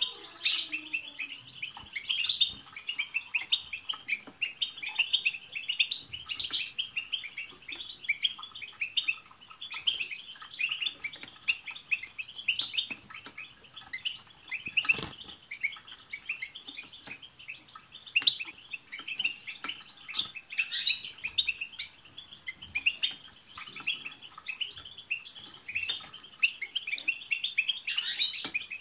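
Several European goldfinches singing together: dense, continuous rapid twittering, with a run of about half a dozen repeated high notes near the end. A single sharp click about halfway through.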